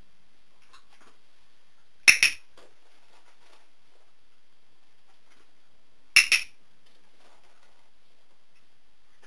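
Dog-training box clicker clicked twice, about four seconds apart, each a quick two-part click-clack. Each click marks the dog's correct response in clicker training.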